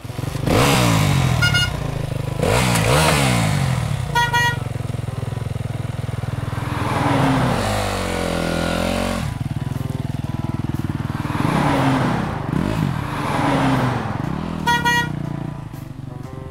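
Cartoon traffic sound effects: car engines revving and zooming past, rising and falling in pitch. A car horn honks in three short bursts, about a second and a half in, about four seconds in, and near the end.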